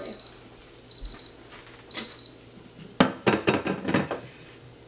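Instant Pot air fryer lid beeping while it sits off the pot: short, high, rapid beep groups, three of them about a second apart. About three seconds in comes a sharp clack and about a second of clattering kitchenware as drumsticks are lifted out of the steel basket, the loudest sound.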